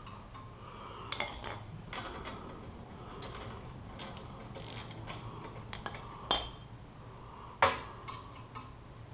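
Hand tools and metal exhaust parts clicking and clinking during work on a motorcycle exhaust, with two loud sharp metallic clanks, one about six seconds in and another a second later, the first ringing briefly.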